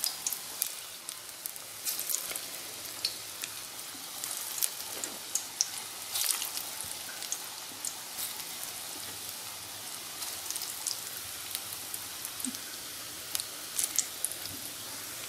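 Bottle-gourd kofta balls deep-frying in hot oil in a kadhai: a steady sizzle with many sharp crackles and pops.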